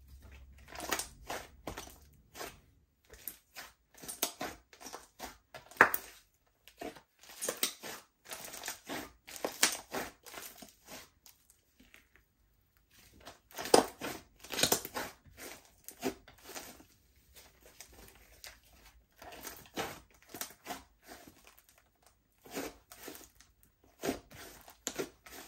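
Slime being squished and stretched by hand, giving irregular bursts of wet crackling and popping with short pauses between handfuls.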